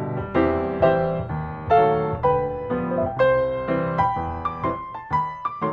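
Background piano music: a gentle melody of single struck notes over a bass line.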